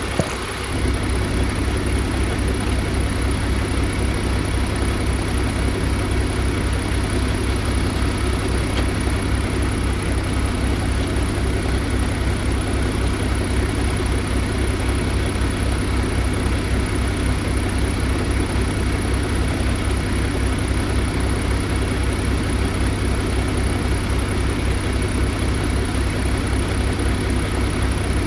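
Kenworth T680 semi truck's diesel engine idling with a low, even throb, running the AC while it is recharged with refrigerant. It gets louder about a second in, then holds steady.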